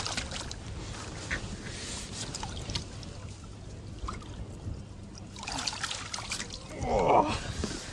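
Water trickling and sloshing in a bass boat's livewell as a bass is taken out by hand, with small knocks, and louder splashing in the last couple of seconds.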